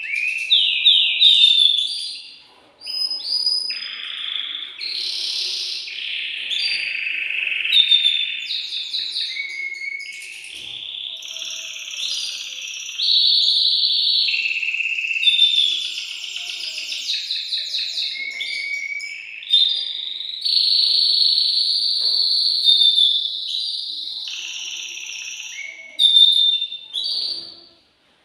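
Male domestic canary singing a long, continuous song of rapid trills and rolls mixed with held whistled notes, with brief breaks about three seconds in and just before the end. It is the excited breeding song of a male canary.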